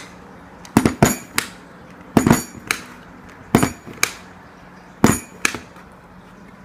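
Handheld stapler driving staples through a polyester fiber filter pad and plastic mesh: a run of sharp clicks, mostly in pairs about half a second apart, every second or so.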